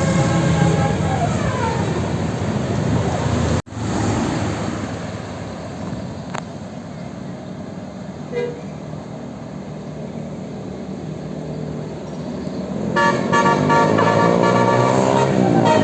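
Bus 'telolet' basuri multi-tone air horn playing a melodic tune, its notes sliding down in the first two seconds, then road and engine noise, and the horn melody sounding again loudly about thirteen seconds in.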